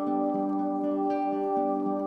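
Background music: soft new-age/ambient music with sustained ringing tones and gentle notes entering every second or so.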